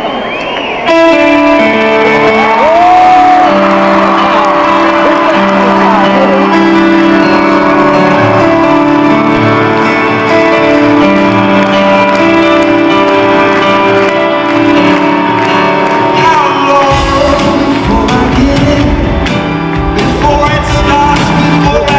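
Live band music in a large hall starting abruptly with long held keyboard chords, a few crowd shouts and whoops over it. A heavy low drum and bass beat comes in about three-quarters of the way through.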